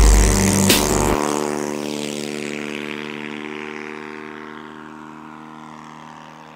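The 85 cc four-stroke petrol engine of a giant-scale RC Cessna 182 runs steadily under power as the plane lifts off and climbs away, a steady pitched drone that fades as the plane gets further off. A low rumble under it stops about a second in.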